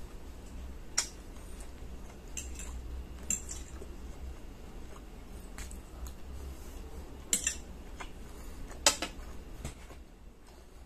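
Metal fork and spoon clinking and scraping against a ceramic plate while eating spaghetti, several sharp clinks spread out, the loudest near the end.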